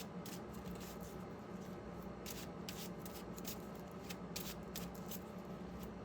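Tarot cards being handled: faint, irregular short swishes and clicks, a few a second, over a low steady hum.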